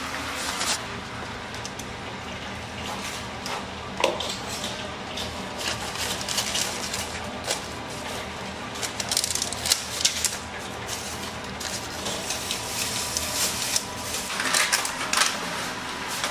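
Irregular clicks, knocks and rustles of plastic takeout boxes and paper sleeves being handled and packed, over a steady kitchen hum.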